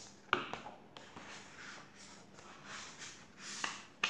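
Paper rustling as a paperback picture book is handled and its pages turned, with sharp knocks about a third of a second in and twice near the end.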